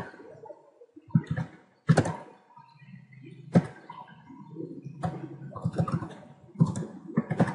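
Scattered keystrokes on a computer keyboard: sharp, irregular clicks about a second apart, with a faint low hum between them.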